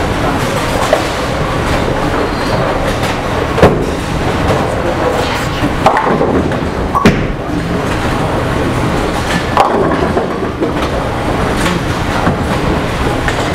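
Bowling alley din: bowling balls rolling down the lanes in a steady rumble, broken by a few sharp cracks of balls hitting pins.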